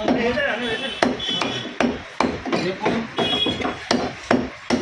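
A butcher's heavy knife chopping mutton on a block, a run of sharp even strokes about two and a half a second starting about a second in.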